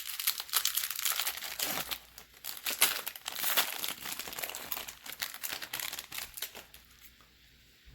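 Wrapper of a baseball card pack being torn open and crinkled. The rustling is dense and crackly, then dies away about seven seconds in.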